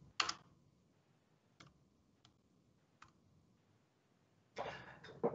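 A few isolated keystrokes on a computer keyboard: one sharp click just after the start, then three faint clicks spread over the next few seconds.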